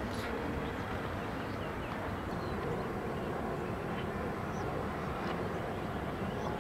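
Distant town ambience: a steady low rumble of far-off traffic and activity, with faint short bird chirps scattered through it.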